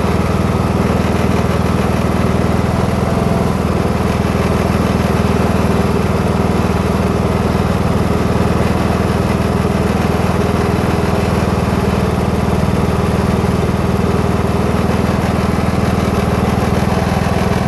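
New Husqvarna TS 242 lawn tractor running steadily, making a grinding noise.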